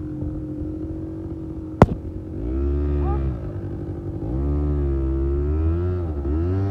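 ATV engine running at a steady pitch, then revving up and down repeatedly from about two seconds in. There is a single sharp knock just before the revving starts.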